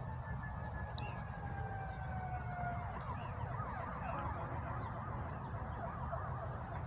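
Emergency vehicle siren: a long, slowly falling wail, which switches about three seconds in to a fast up-and-down yelp. A low steady rumble runs underneath.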